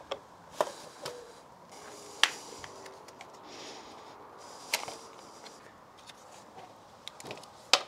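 A handful of sharp, separate metal clicks and taps from a screwdriver and the handlebar's choke lever and cable fittings as the choke cable is worked loose, with a soft rustle of gloved hands near the middle.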